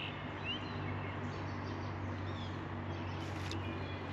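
Small birds chirping in short calls, one a quick rising note about half a second in, over a steady low hum of outdoor background noise.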